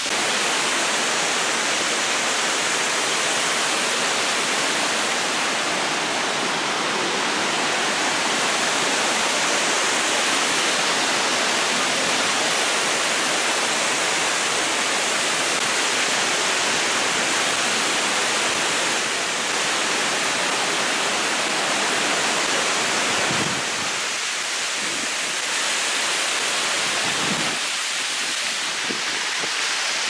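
Waterfall cascading over stepped rock ledges, a steady rush of falling, splashing water close to the microphone.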